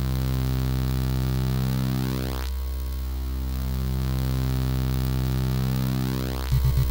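ZX Spectrum 48K one-bit beeper music: a held, buzzy low square-wave drone that slowly swirls as its tone sweeps. About six and a half seconds in, a louder pulsing bass pattern starts.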